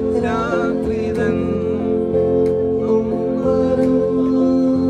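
Music: a singing voice over steady held keyboard chords.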